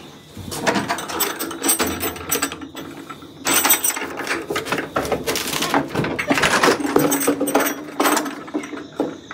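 Mesh-screened wooden door and its latch being handled and opened: a long run of rapid rattling and clicking, with a brief pause about three seconds in.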